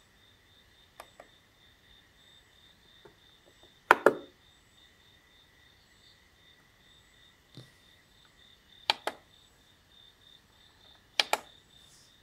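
Plastic clicks from a Gospell DRM radio's push-buttons and push-to-select tuning knob being pressed and released: four double clicks, the loudest about four seconds in. Behind them is a faint steady high-pitched chirping.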